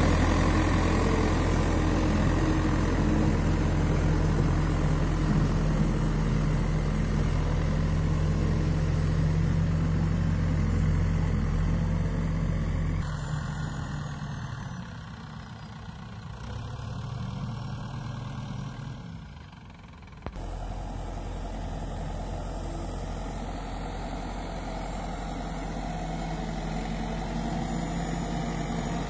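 Escorts backhoe loader's diesel engine running, a steady low hum. About halfway through it drops away to a much fainter, more distant engine sound, then comes back abruptly about two-thirds of the way in and runs on steadily.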